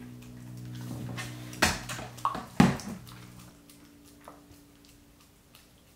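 Shiba Inu licking and chewing a frozen treat: a run of small wet clicks and smacks, with a few loud chomps between about one and a half and three seconds in.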